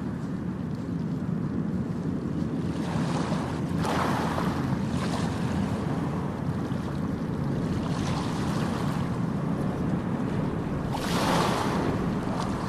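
Sea surf washing in, with swells of rushing noise about every three to four seconds, and wind buffeting the microphone.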